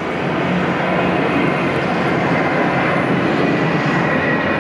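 Jet engines of a USAF C-32 (military Boeing 757) running as it taxis out for departure: a steady rush with a faint high whine that grows a little louder near the end.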